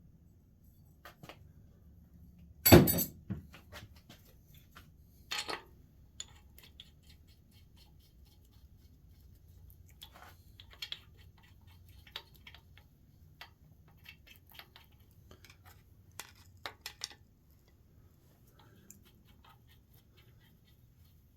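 Metal tools and parts being handled on a workbench: one loud clank about three seconds in and another about five seconds in, then scattered lighter clinks and clicks that stop a few seconds before the end.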